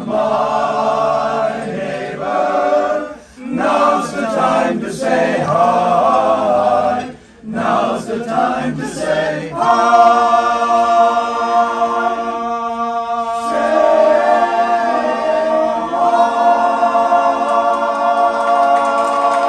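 Men's a cappella chorus singing. The singing breaks off briefly a couple of times in the first half, then settles into long held chords from about halfway.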